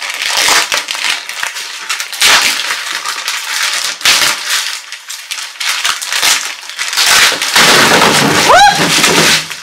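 Thick plastic wrapping crinkling and tearing in bursts as a vacuum-compressed roll-up mattress is unwrapped by hand. Near the end comes a louder, fuller rush of noise with a short rising squeal, as the compressed mattress springs open out of its wrap.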